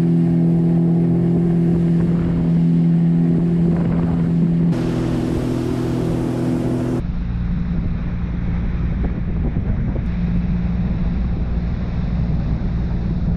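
Sea-Doo Fish Pro jet ski running at a steady cruising speed: a constant engine hum with rushing water and spray, and wind buffeting the microphone. The sound changes abruptly twice; after about seven seconds the engine hum is fainter and wind and water noise is stronger.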